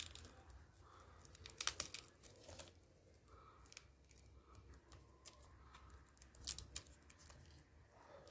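Faint crinkling and small clicks of adhesive tape and a thin display ribbon cable being handled and pressed down onto the back of a laptop LCD panel, in two short clusters about one and a half seconds in and again about six and a half seconds in.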